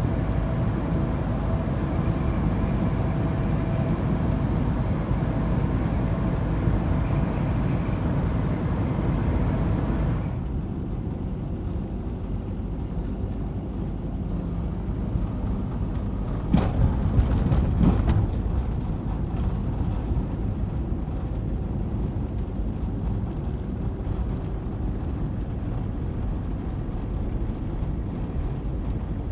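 Ford Transit van driving at road speed: steady engine and tyre noise. The higher hiss drops away about ten seconds in, and a few sharp knocks or rattles sound about seventeen seconds in.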